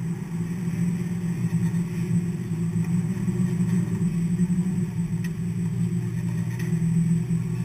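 NASCAR race vehicle's V8 engine idling steadily, heard from inside the cockpit as a deep, even rumble with a few faint ticks.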